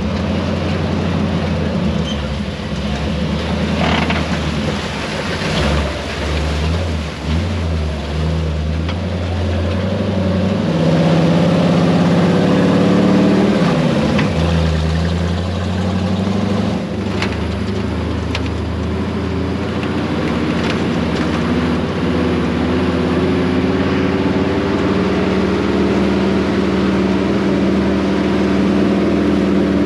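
Pickup truck engine running as it drives a dirt track. Its pitch climbs over a few seconds, drops sharply about fourteen seconds in, then holds a steadier note, with a few short knocks along the way.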